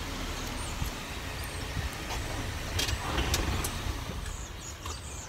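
Volvo S60 sedan pulling up close and stopping, its engine running at idle, with a few light clicks about three seconds in.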